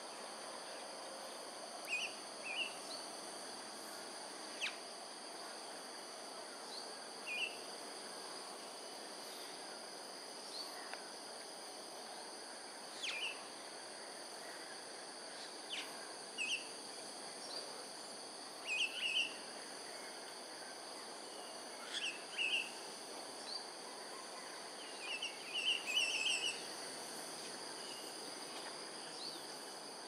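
Short, high bird chirps, often in pairs or little runs, every few seconds, with a busier flurry near the end, over a steady high-pitched insect drone at several pitches.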